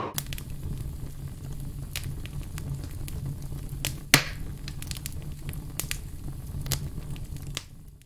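Fire crackling: irregular pops and snaps over a low steady rumble, with one sharper pop about four seconds in.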